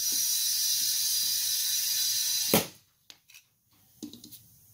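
Compressed air hissing steadily into an underinflated lawn tractor tire through an air chuck on the valve stem for about two and a half seconds, ending in a sharp click as the air stops. A few faint clicks follow near the end.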